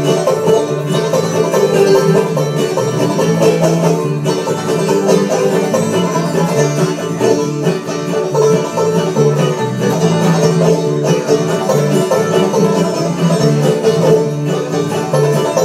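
Clawhammer banjo playing a bluegrass tune with a string band, acoustic guitar and other strings accompanying, with a moving bass line underneath; live and continuous.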